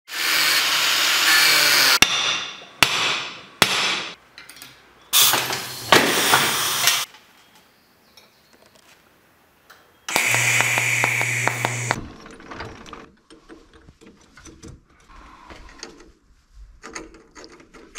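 Angle grinder in a cut-off stand, its thin abrasive wheel cutting stainless steel in three bursts of about two seconds each, with sharp metal knocks between the first two. The rest is quieter clinking and clicking of small steel parts being handled.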